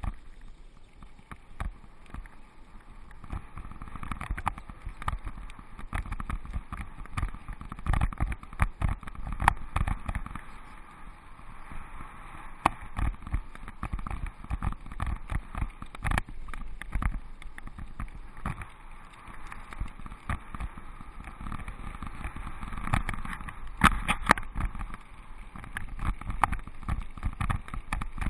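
Mountain bike riding a gravel and chip-seal path, heard from a camera mounted on the bike: steady tyre rumble broken by frequent knocks and rattles over the bumps.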